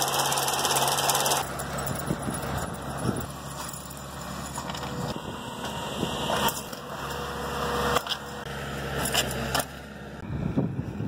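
Sod harvester running: a steady engine and machinery hum with scattered clanks and rattles from the roll-up mechanism. Near the end the machine noise drops away to wind on the microphone.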